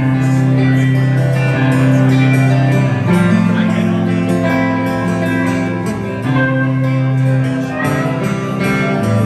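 Live band playing an instrumental passage on acoustic guitar, electric guitar and bass guitar, with long held bass notes under the guitars.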